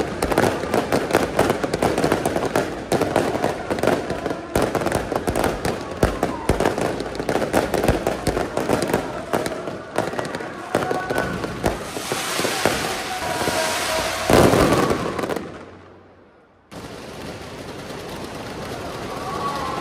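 Fireworks and firecracker strings going off in a dense, rapid crackle of many reports a second, rising to a louder spell with one big bang about fourteen seconds in, then fading out. After that, a steadier, quieter background noise.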